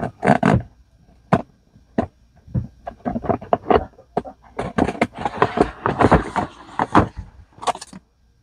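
Scissors snipping and slicing the tape on a cardboard box, with sharp clicks and knocks, then the box is opened and cardboard and a paper manual are handled, rustling and scraping.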